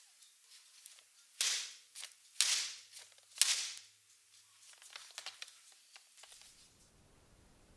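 Metal Swiss roll baking tray full of cake batter knocked down on the countertop three times, about a second apart, with a lighter knock between them and a few softer knocks after; this settles the batter and drives out air bubbles before baking.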